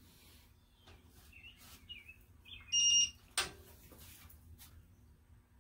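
Digital torque wrench giving one high beep about a third of a second long, the signal that a cylinder-head bolt has reached its set torque. A sharp metallic click follows about half a second later.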